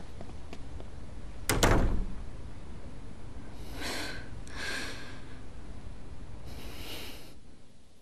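A tall wooden glass-panelled double door pulled shut with a loud thud about a second and a half in, then three soft breathy exhalations.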